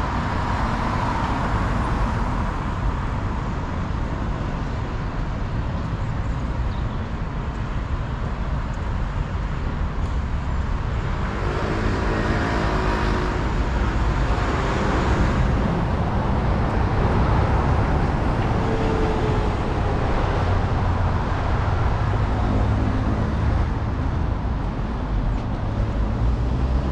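Steady city road traffic: cars running past on the street, with a louder vehicle going by about halfway through.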